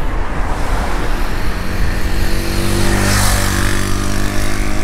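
A car passing on the road alongside: engine hum and tyre noise build to a peak about three seconds in, then ease off.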